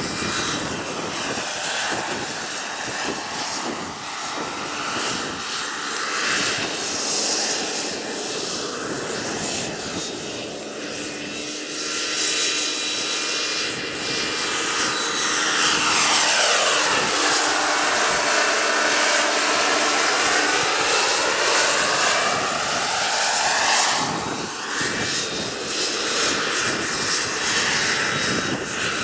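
Turbine engine and rotor of a radio-controlled scale CH-53 helicopter running steadily as it flies low. About halfway through it grows louder and its whine sweeps down and back up as it passes close.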